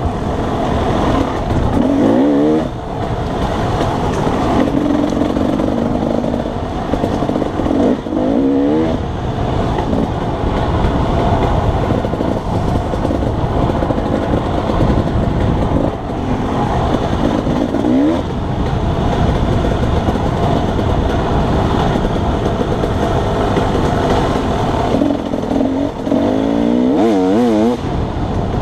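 Dirt bike engine running under load on a trail ride, the revs rising and falling as the rider works the throttle, with a few quick wavering changes in pitch.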